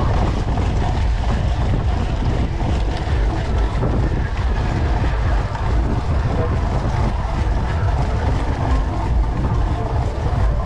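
Riding noise from a cyclocross bike on a dirt and leaf-covered trail: steady wind buffeting the microphone, mixed with the tyres rolling and the bike rattling over the ground.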